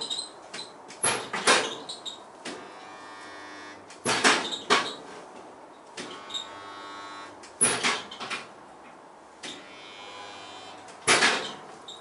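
Metalwork on a car body shell: sharp metallic clanks and knocks every one to three seconds, often two close together, each ringing briefly, with a faint steady hum in some of the gaps.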